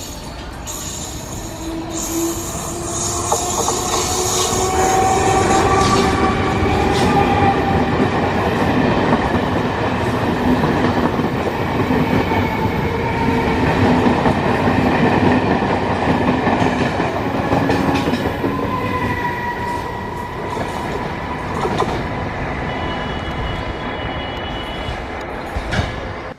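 Electric multiple unit train running through the station with loud wheel-on-rail rumble. Several whining tones rise in pitch over the first several seconds, then hold steady, before the sound cuts off at the end.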